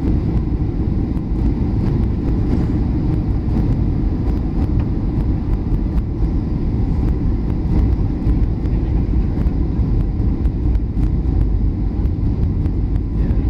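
Steady low drone inside the cabin of a Boeing 737-800 on approach: its CFM56 engines and the airflow over the fuselage.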